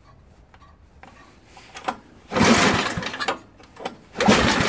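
Two pulls on the recoil starter of a 5 hp Tecumseh snowblower engine, about two seconds apart, each a rough rasp of rope and cranking lasting about a second. The engine does not catch on either pull.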